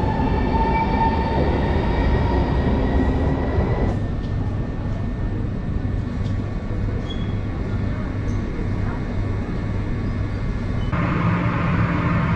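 PKP Intercity electric train moving along an underground station platform, its traction motors whining in steady tones over the rumble of the wheels. About four seconds in this gives way to the lower, steady hum of a train standing at the platform.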